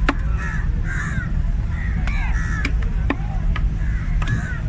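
Crows cawing again and again, with a few sharp knocks of a knife chopping fish on a wooden block, over a steady low rumble.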